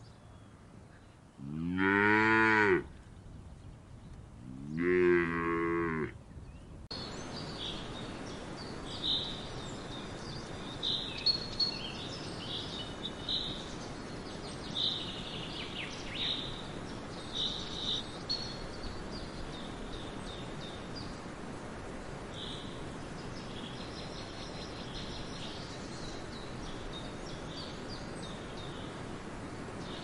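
Cattle mooing twice: two long, loud moos that rise and fall in pitch, about a second and a half and four and a half seconds in. From about seven seconds there is a steady background hiss with scattered short, high bird chirps.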